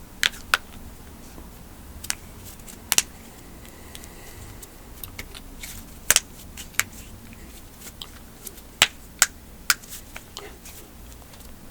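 Sharp popping cracks of human joints being cracked, about a dozen scattered irregularly, some in quick pairs.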